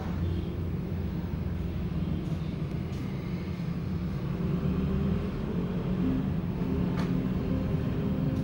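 Steady low mechanical rumble with a hum, with a single faint click about seven seconds in.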